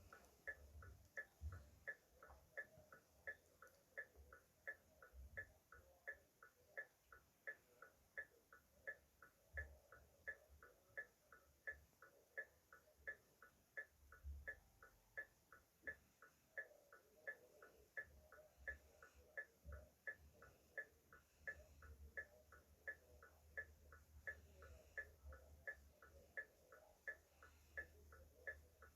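Car hazard-light flasher relay clicking steadily and faintly, an even tick-tock of a little over two clicks a second, with a light low rumble underneath.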